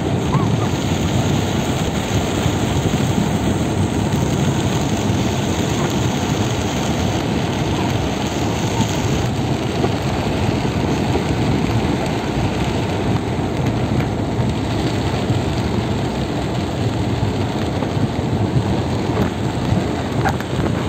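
Heavy rain beating on a car's windshield and roof, heard from inside the cabin as a steady, dense hiss, mixed with the car's running noise.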